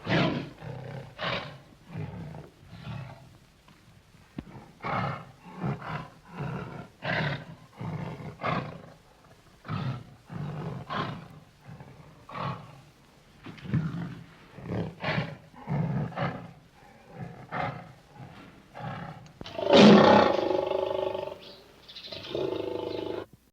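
Bear sound effects: a rapid series of short roars and growls, roughly one a second. About twenty seconds in comes a louder, longer roar, then a held call that cuts off suddenly near the end.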